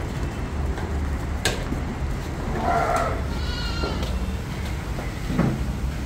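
Goats bleating as the herd is driven into the shed: a short call about halfway through, followed at once by a higher one. A sharp knock comes about a second before, over a steady low hum.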